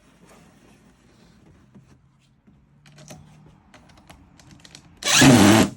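A pneumatic nail gun: light taps and clicks as it is set against the wood, then about five seconds in one loud shot with a rush of air lasting under a second.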